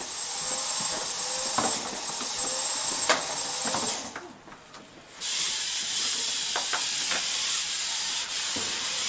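Driving and mechanism motors of an FTC competition robot running with a steady high whine and hiss, with gear noise and a few ticks underneath. The sound cuts out for about a second a little after four seconds in and then starts again.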